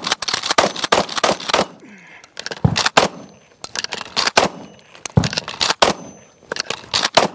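Shotgun fired in rapid succession, the sharp reports coming in quick clusters with short gaps between.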